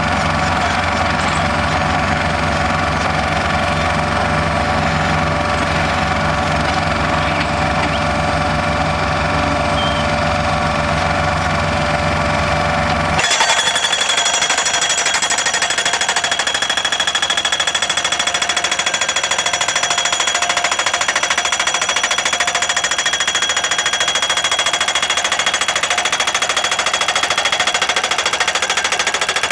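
Solar pile driver's hammer pounding continuously, a rapid run of metal-on-metal blows as it drives a mounting post into the ground. About halfway through the sound changes abruptly: the low rumble drops out and a higher metallic ringing takes over.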